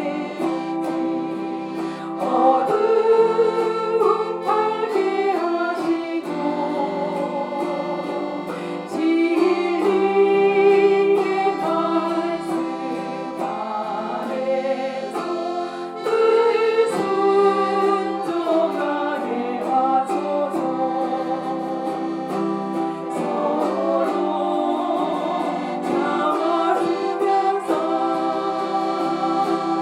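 Chromaharp and accordion playing a gospel song together: quick plucked strums of the harp over the accordion's held chords and melody.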